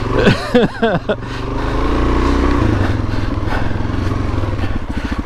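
Suzuki DR-Z400S single-cylinder four-stroke engine running at low trail speed, the revs picking up a little about two seconds in and then holding steady.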